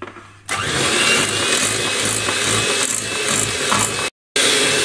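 Electric hand mixer running steadily, its beaters whipping butter and icing sugar into buttercream in a glass bowl. It starts about half a second in, and the sound drops out for a moment near the end.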